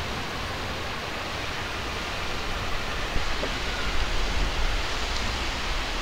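Steady rushing noise of Furepe Falls, water spilling down a rock cliff face. A few short low rumbles of wind buffet the microphone in the second half.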